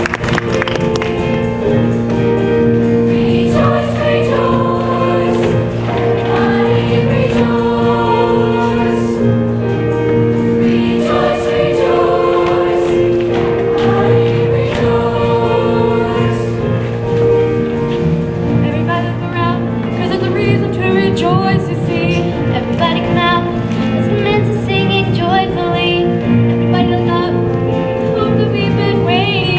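Junior high show choir singing with instrumental accompaniment that holds steady chords underneath.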